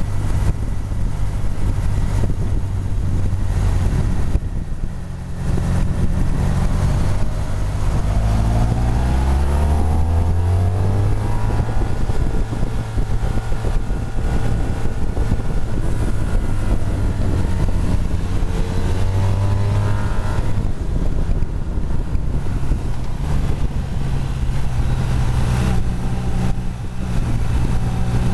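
Motorcycle engine running under way, mixed with wind and road noise on the microphone. The engine pitch climbs as the bike accelerates, about a third of the way in, again past the middle, and near the end.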